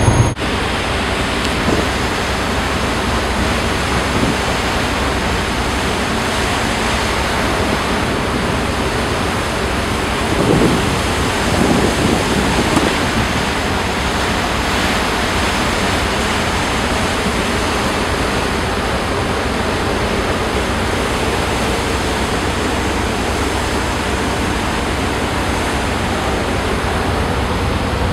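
Steady rushing noise on board a moving tugboat, wind across the microphone mixed with water along the hull, swelling briefly about ten seconds in.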